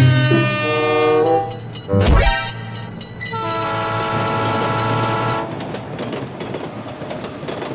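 Cartoon train sound effects: a train horn sounds, a rising whoosh sweeps up about two seconds in, and a long steady horn note is held until about halfway through. After that comes a steady rushing noise of the train running on the rails.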